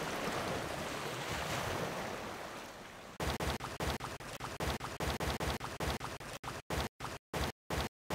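A steady rushing noise that swells and then fades. About three seconds in, it breaks into rapid chopped bursts, several a second, and the silent gaps between them grow longer toward the end.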